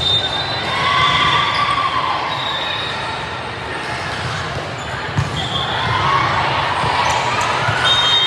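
Echoing gym sounds during a ball game: a ball bouncing and being struck, short high sneaker squeaks on the court, and voices in the hall, with a sharp knock about five seconds in.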